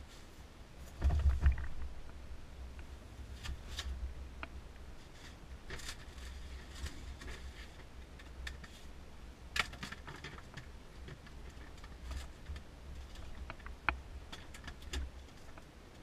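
Handling noise: scattered clicks, knocks and rustles as gear is moved about, with a heavy low thump about a second in.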